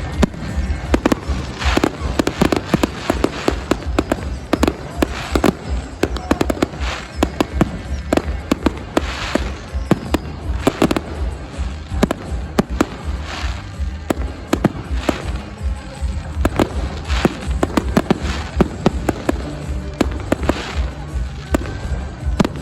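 Fireworks display: a rapid run of shell bursts and crackling reports, several a second, going on throughout, with music playing underneath.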